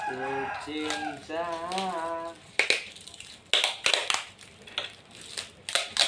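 A voice briefly singing a few notes. Then comes a string of sharp clicks and taps from hands working the air conditioner's pipe fittings.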